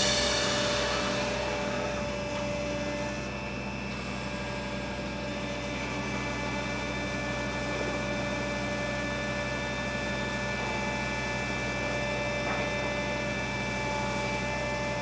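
Massenza MI55 electric drilling rig running, its electric motors and hydraulic drive giving a low, steady hum with several steady tones and no diesel engine note.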